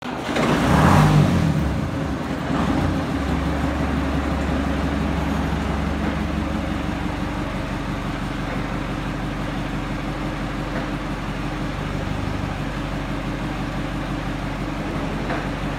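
Perkins 4.270 four-cylinder diesel engine of a 1935 Baguley 2 ft gauge locomotive running, loudest in a brief burst about a second in, then settling to a steady even run.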